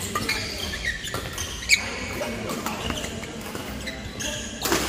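Badminton rally: racquets striking the shuttlecock back and forth, with shoes squeaking on the court mat. The sharpest hit comes about a second and a half in.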